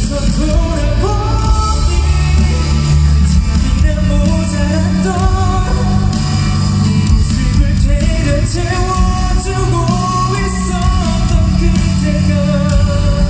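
Live pop ballad played loud through a concert hall PA, a male singer holding long, sliding notes over a heavy bass accompaniment.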